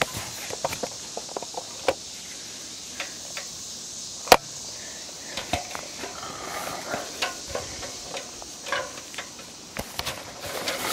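Irregular crunches, clicks and knocks of footsteps on dry leaf litter and of the camera being handled, with one sharp knock about four seconds in. A steady high drone of insects runs under them.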